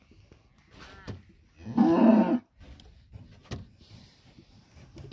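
A cow gives one short, loud moo close by, about two seconds in, with a fainter call shortly before it.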